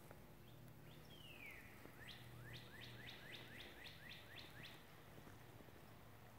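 Faint song of a wild songbird: one downward-sliding whistle, then a quick series of about ten short sweeping notes at roughly four a second.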